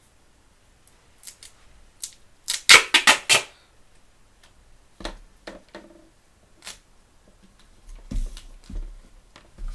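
Handling and cutting of gaffer tape as it is wrapped around a book's spine: scattered clicks and knocks, with a louder run of several quick sounds between two and a half and three and a half seconds in.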